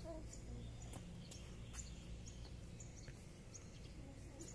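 Faint outdoor background noise with a low steady hum and a few faint, short bird chirps.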